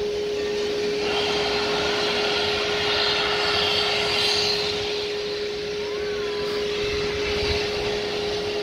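Steam hissing from Santa Fe 2926, a 4-8-4 steam locomotive, swelling from about a second in and easing after about five seconds, over a steady tone.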